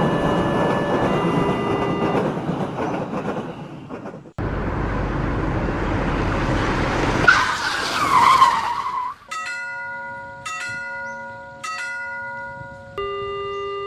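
Cartoon vehicle sound effects. A rumble like a passing train fades out and cuts off, then a car skids with a squeal of tyres for about two seconds. Then a bell-like electronic tone sounds three times about a second apart and shifts to a new pitch near the end.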